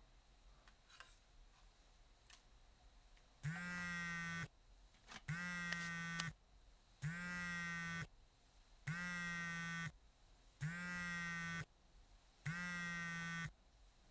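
Mobile phone buzzing with an incoming call: six steady pulses about a second long, spaced about two seconds apart, after a few faint clicks.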